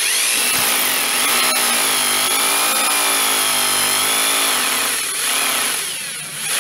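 Hammer drill with a 6 mm masonry bit drilling into a wall. The motor starts suddenly and runs loud, its whine wavering in pitch as it bears down; it eases off briefly near the end, then runs up again.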